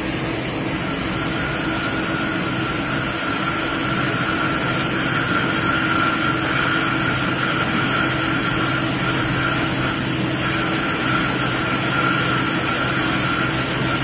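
Hirung EL75LL CNC lathe turning a metal workpiece: a steady machining noise from the running spindle and cutting tool, with a steady high whine that comes in about a second in.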